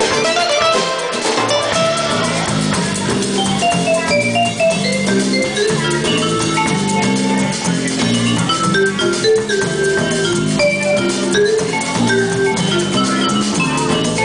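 Live instrumental jam: an electric guitar plays a quick melodic lead line over an electric bass guitar's steady bass line and a regular beat.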